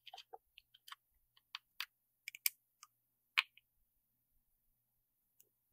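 Faint, irregular small clicks and ticks of a small driver turning M3 screws down into a magnesium/aluminium SSD case, about a dozen over the first three and a half seconds.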